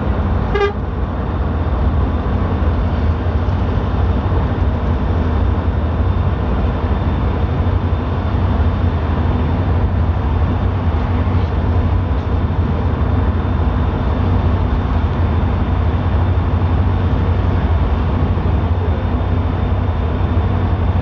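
Steady low drone of a vehicle travelling at speed, engine and tyre rumble on a wet road heard from inside the cabin. A short rattle sounds about half a second in.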